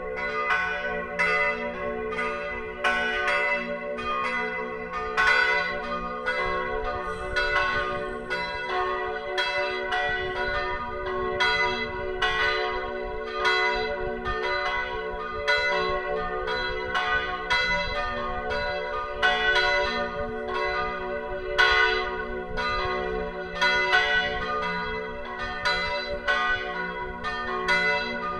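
Full peal of three church bells tuned to F♯, B and D♯, cast in 1582 by Hans Christoph Löffler, in 1604 by Heinrich Reinhart and in 1947 by Oberascher, all ringing together. Their strokes overlap in an unbroken, uneven stream of about two a second, over the bells' lingering hum.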